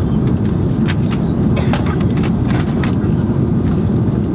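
Airbus A330 cabin noise in cruise: a steady, loud low rumble of engines and airflow, with a few light clicks over it.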